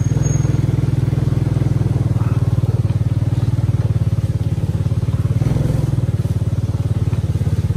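Small motorcycle engine running steadily, with an even, fast pulsing drone.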